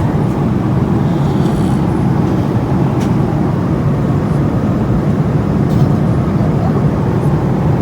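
Steady, loud drone of an airliner cabin in flight: engine and airflow noise, mostly low, with no clear rise and fall.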